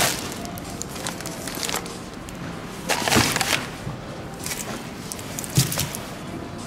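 Groceries being set down on a supermarket checkout conveyor belt: a few knocks and rustles of packages, the strongest about three seconds in, over steady background noise.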